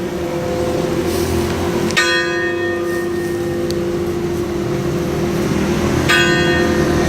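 Church bell struck by hand with a tool, its ringing mechanism seized: two strikes about four seconds apart. Each strike rings out with bright overtones that fade, while the bell's low hum carries on between them.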